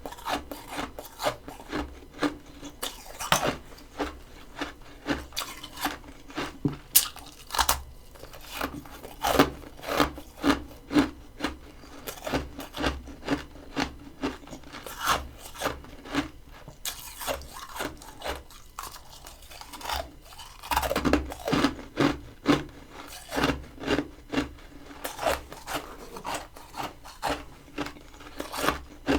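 Crunchy freezer frost, grown with a humidifier, being chewed close to the microphone in a steady run of sharp crunches, about two a second, with a denser, louder stretch about two thirds of the way through.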